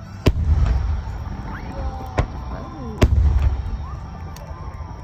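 Aerial firework shells bursting: three sharp bangs, the first just after the start and the loudest two followed by a deep rolling boom that lasts about a second. Faint crowd voices are heard underneath.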